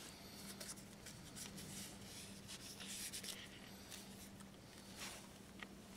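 Faint scratching and rubbing of fingers and a fingernail on glazed porcelain, in several short strokes, over a steady low hum. It is the fingernail test: a nail run across a freshly glued crack to feel for a catch that would show the pieces are out of alignment.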